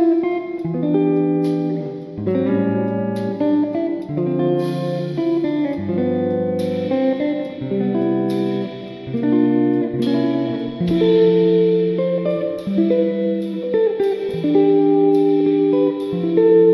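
Instrumental background music led by plucked guitar, with chords changing every second or so.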